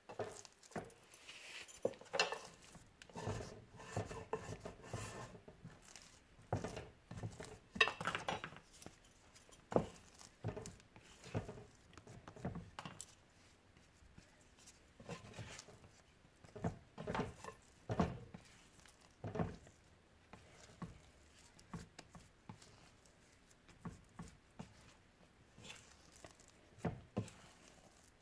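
Wet hands working a sticky sourdough bread dough: irregular soft slaps and knocks with occasional clinks, in an uneven rhythm.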